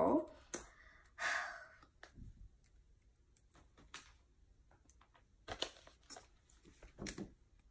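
Faint handling noises: scattered light clicks and short crinkling rustles, with a rustle about a second in and a cluster of crinkles near the end as a plastic tea pouch is picked up and held up.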